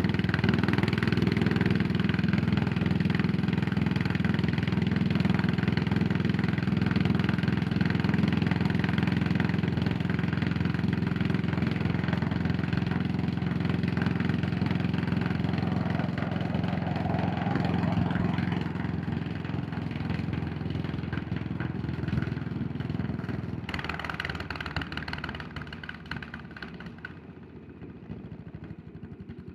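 Yamaha SR400's single-cylinder four-stroke engine running steadily while riding, then easing off over the last third and settling to a slow idle with separate firing pulses near the end.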